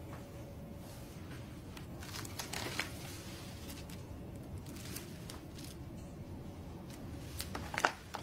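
Paper rustling and crinkling as bundles of banknotes in their wrappers are picked up and handled, in scattered soft bursts with a few light clicks. The bursts are louder near the end, over a low steady room hum.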